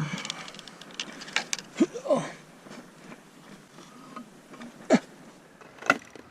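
A few sharp knocks and clicks with some rustling and a couple of short squeaky creaks, from someone moving about and handling things; the loudest knocks come near the end.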